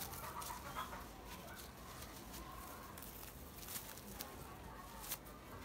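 Faint, scattered bird calls over low background noise, with small clicks and feather rustles as a pigeon is handled.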